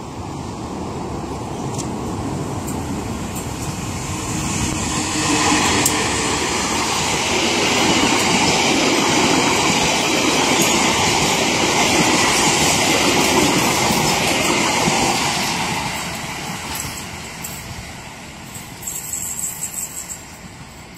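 A CC 201 diesel-electric locomotive hauling a passenger train approaches and passes close by, with engine noise and then the coaches' wheels running on the rails. It grows loud about five seconds in, stays loud for about ten seconds, then fades as the train draws away.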